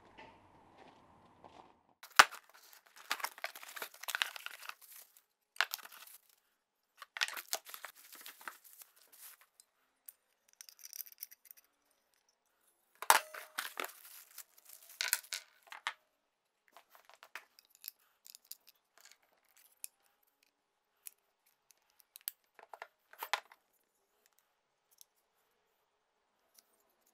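Plastic packaging handled and torn open in irregular crinkling bursts as small bags of parts are unpacked, with a couple of sharp clicks.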